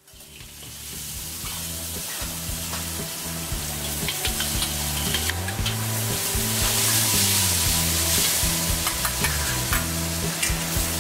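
Food sizzling hard in a hot wok as it is stir-fried, with a metal ladle clicking and scraping against the wok, over background music with a low bassline. The sound fades in at the start and grows louder.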